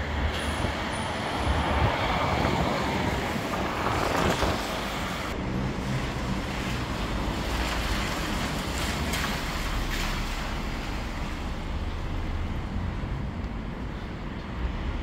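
Road traffic: vehicles passing on a wet road, swelling twice in the first few seconds, then a steady rumble of traffic in the background.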